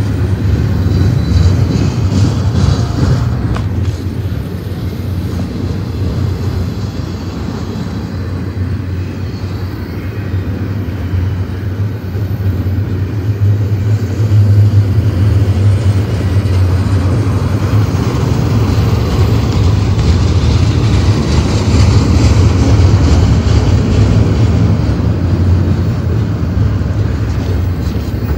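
Double-stack intermodal freight train's well cars rolling past close by: a loud, steady rumble of steel wheels on rail.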